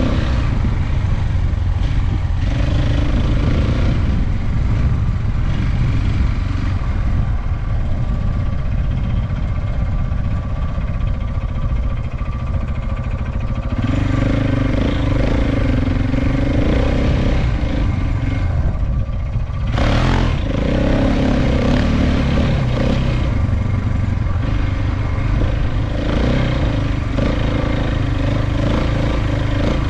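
KTM 690 Enduro single-cylinder motorcycle engine running under way off-road, with a heavy low rumble throughout. The engine note grows stronger about halfway through, and there is a brief sharp clack about two-thirds of the way in.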